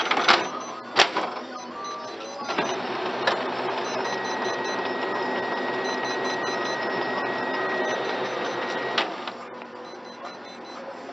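Kyocera laser multifunction printer: two sharp clacks as its front cover is shut, then its motors run steadily for about six and a half seconds with a thin high whine partway through, stopping with a click.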